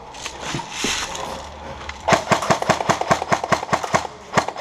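Airsoft gun firing: a few single shots, then from about two seconds in a rapid full-auto burst of about six to seven shots a second lasting some two and a half seconds.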